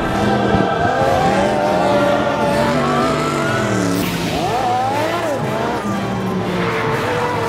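Turbocharged Triumph Daytona sportbikes and a long-travel buggy racing by at full throttle. Several engines rev at once, their pitch rising and falling with each gear change, and there is a brief burst of tyre noise about four seconds in.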